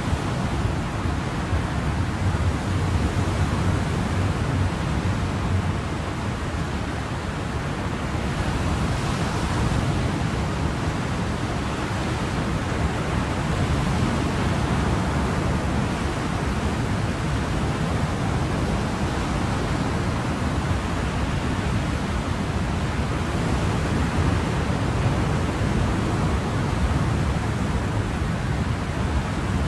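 Ocean surf: a steady, continuous wash of waves, swelling slightly brighter about nine seconds in.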